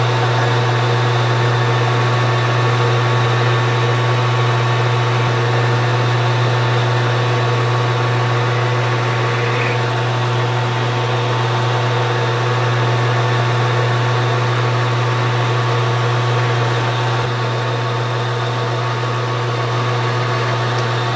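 Metal lathe running steadily under power, turning a shoulder on a metal bar: a loud, even motor-and-gear hum with a few fainter steady whines above it.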